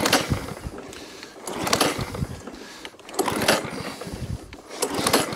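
Pull-start recoil starter of a petrol rotary lawn mower with an overhead-valve engine, yanked about four times at an even pace: the engine turns over with each pull but does not catch.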